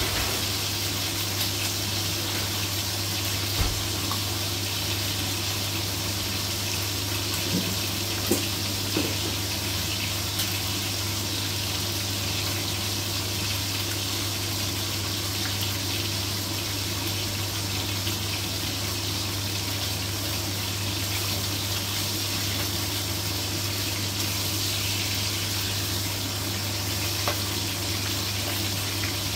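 Pork chops sizzling as they fry in oil in a nonstick pan: a steady frying hiss with a few small pops scattered through it.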